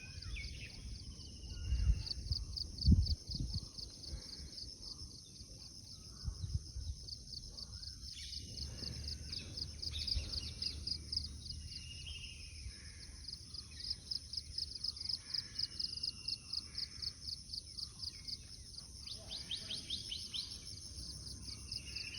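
Outdoor natural ambience: insects chirping in a steady high pulse, about four a second, with birds calling now and then. A few low thumps about two to three seconds in.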